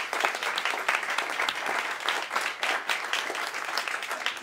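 An audience applauding, a dense, steady clapping.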